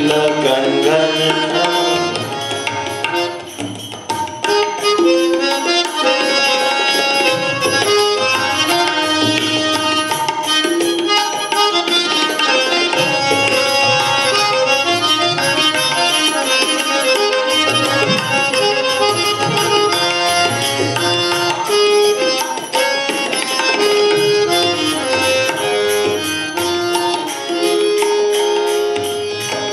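Indian devotional music: tabla keeping a steady rhythm under a melody of held notes.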